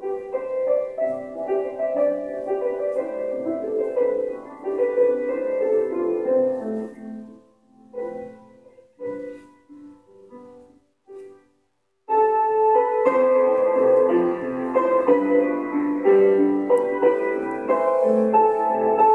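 Solo piano music. The notes thin out and fade to a brief silence about eleven seconds in, then the piano comes back fuller a second later.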